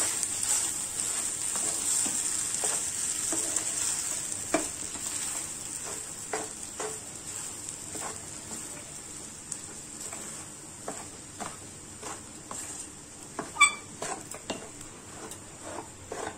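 A wooden spatula stirs and mashes crumbled idli and egg in a frying pan over a sizzle that fades gradually after the flame is turned low. Repeated soft knocks and scrapes of the spatula against the pan run throughout, with one sharper knock near the end.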